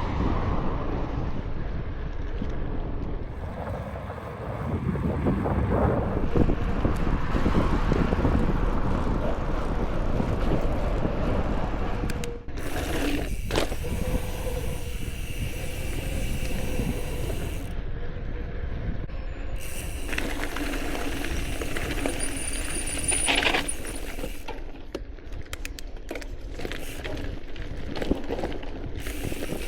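All-City Gorilla Monsoon gravel bike being ridden: steady tyre and road noise with rattles from the bike and wind on the microphone, changing in level several times.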